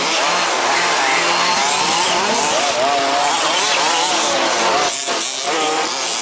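Several 1/5-scale RC buggies' small two-stroke petrol engines buzzing together, their pitch rising and falling as they rev on and off the throttle.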